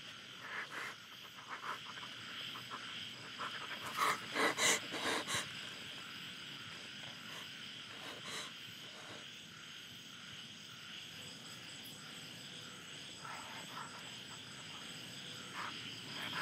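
Night chorus of frogs and crickets: a steady high insect trill with scattered frog croaks, and a short cluster of louder croaks about four seconds in.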